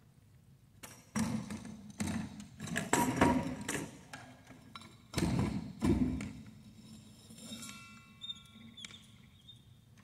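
A run of heavy thumps and knocks as a core drill's stand and bit are worked by hand to straighten them back out, starting about a second in and dying away after about six seconds; the drill motor is not running.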